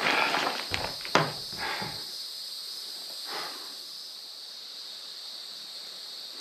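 A few knocks and rustles of a person shifting on wooden shelter floorboards in the first two seconds. Behind them a steady high insect drone runs on, typical of a summer forest.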